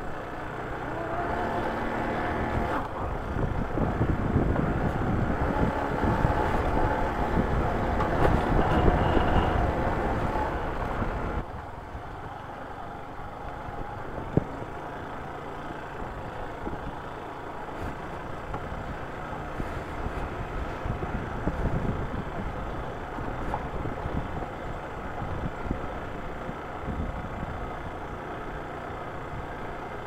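Motorcycle riding over a rough dirt and gravel track: engine running under road and rattle noise, louder for the first ten seconds or so, then dropping abruptly and staying quieter. One sharp knock comes a few seconds after the drop.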